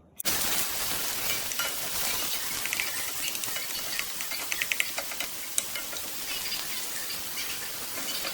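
Food frying in a pan: a steady sizzle with scattered crackles and pops, starting abruptly.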